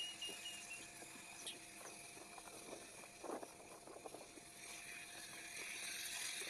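Faint outdoor ambience: a few short, high bird chirps right at the start, scattered soft knocks in the middle, and a hiss that swells near the end.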